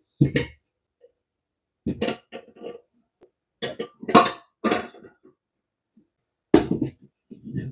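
Ceramic bowls clinking and knocking together as they are stacked and set down on a cabinet shelf. About half a dozen short clatters are separated by quiet gaps, and the loudest comes about four seconds in.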